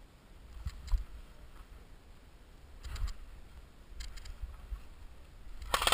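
Footsteps and gear rustling picked up by a body-worn camera: scattered soft thuds and clicks, then a louder rustle near the end.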